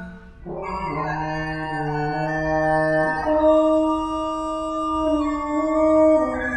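French horn notes run through live FFT-based effects and played over a loudspeaker: held tones layered into several simultaneous pitches, like a sustained chord. After a short break the layered sound comes back in about half a second in, and the notes shift about three seconds in and again near the end.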